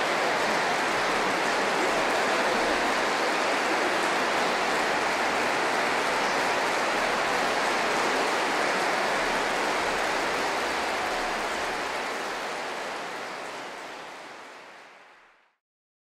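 Large concert-hall audience applauding steadily, fading away near the end.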